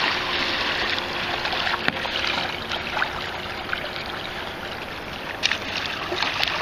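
Double-bladed paddle dipping, splashing and dripping as a New Marine Paraná sit-on-top kayak is paddled through calm sea water: a steady wash of water with a few small splashes.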